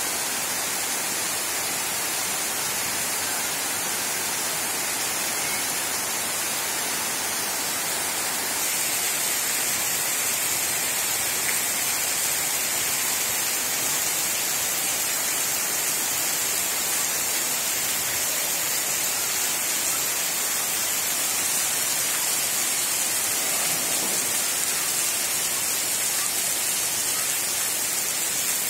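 Heavy rain falling steadily on flat concrete rooftops and foliage, a continuous even hiss. About eight seconds in it grows a little louder and brighter.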